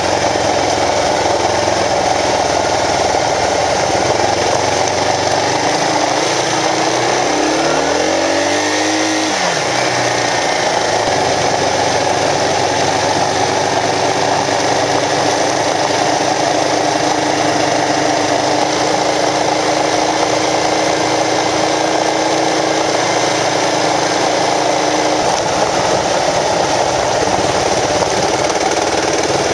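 Kawasaki KLR650 single-cylinder dual-sport motorcycle engine running under way, heard over steady wind and road noise; the engine note rises and falls once about eight seconds in.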